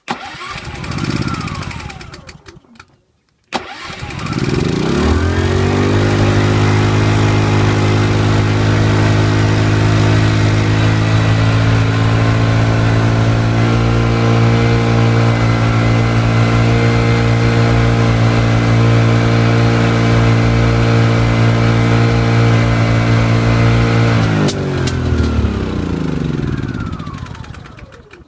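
4.4 kVA inverter generator's small petrol engine being started: a brief first attempt, then it catches about three seconds in and climbs straight to full revs, running steadily at high speed. Running at full revs from the start, which goes with the generator's fault of giving no electrical output. Near the end it is shut off and runs down to a stop.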